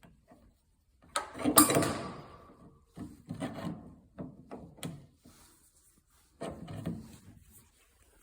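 Refrigerator door hinge hardware being handled and fitted by hand: a series of scrapes, rubs and clicks, the loudest a scraping clatter about a second in.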